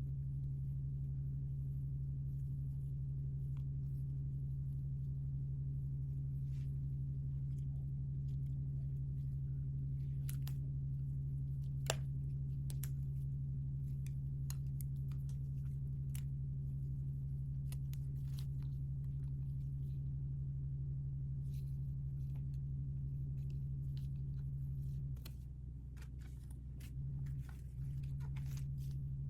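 Scattered small clicks and crinkles of toy packaging being handled and opened, with one sharper click about twelve seconds in, over a steady low hum that drops a little near the end.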